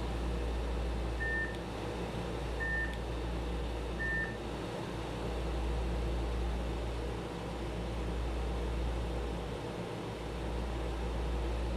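Electronic buzzer beeping out Morse code: three short tones of the same high pitch, evenly spaced about a second and a half apart, then it stops. A steady low hum runs underneath.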